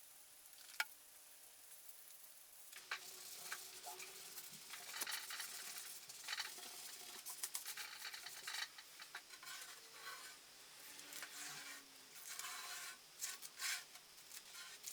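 Irregular scratchy rubbing and scraping from hand work with wood stain, starting about three seconds in after a single click.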